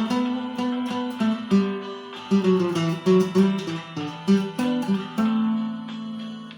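Acoustic guitar sound playing a slow hymn melody over bass notes, in single plucked notes, ending on a long held note that fades away.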